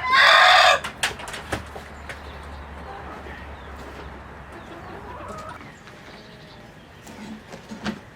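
A rooster crowing, the crow ending about a second in, then quieter clucking and scattered calls from chickens.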